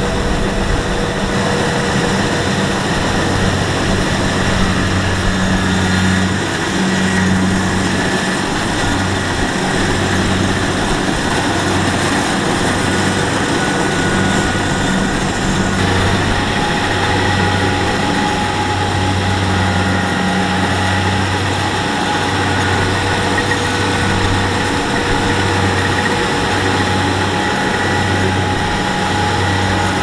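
Kubota DC-70 rice combine harvester running steadily under load as it cuts and threshes rice, its engine and threshing machinery giving a continuous loud drone with a low throb that pulses about once a second.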